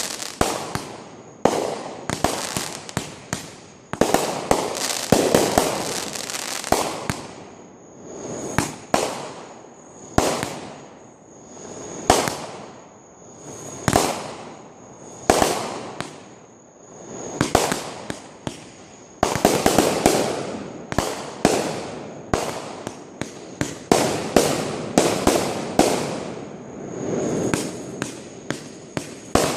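Fireworks going off continuously: sharp bangs every second or two, some in quick runs, with crackling between them.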